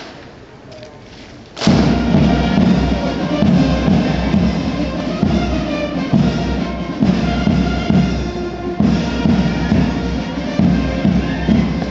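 Military band playing a march with drums and brass, a steady beat, starting suddenly about two seconds in after a short stretch of quiet open-air ambience.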